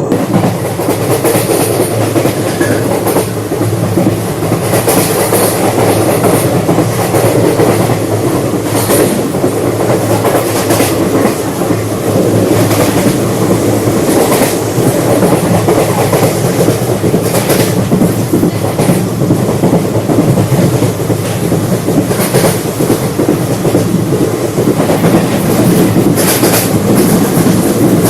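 Passenger coach of an Indian Railways express train running at speed, heard from inside the coach: a steady rumble of wheels on the track with clickety-clack from the rail joints and a sharper clack every few seconds.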